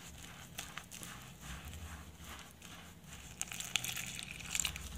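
A hand squeezing and working rice flour and water in a glass bowl, making a quick run of faint soft squishing pats, about three a second.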